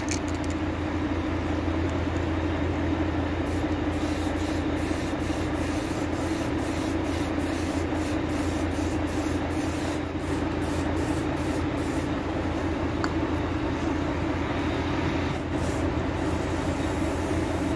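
Aerosol spray paint can hissing in many short bursts, over a steady low hum.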